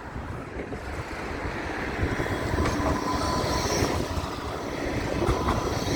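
Tram running past on its rails, its rumble building over the first two seconds and then holding steady, with a faint whine in the middle.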